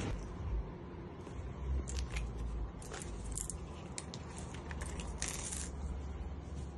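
A paper banknote crinkling and coins clicking down onto a stone countertop: a scatter of short sharp clicks and rustles, busiest in the middle seconds.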